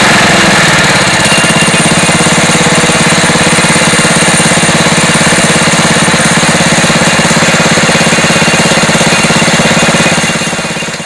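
Engine of a Mobile Drill Minuteman portable auger drill rig running steadily with a fast, even pulse, shifting briefly in pitch about a second in and fading out near the end.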